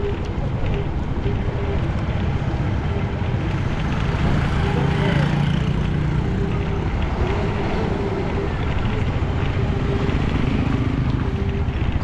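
Steady wind rush on the microphone over a running vehicle, as when riding along.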